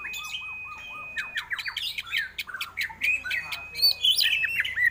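White-rumped shama (murai batu) singing. A long held whistle runs over a quick series of repeated falling notes, then about a second and a half in it breaks into a fast mix of sharp clicking notes, chirps and short whistles, with another held whistle.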